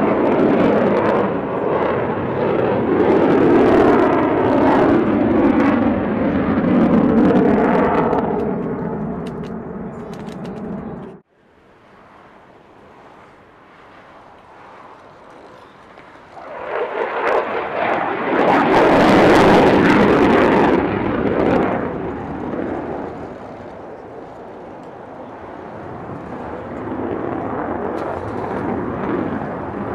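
Fighter jet engine noise, its pitch gliding downward as a jet passes, cut off abruptly about a third of the way in. After a quieter stretch, an F-35's single turbofan engine swells to a loud pass just past the middle and then fades.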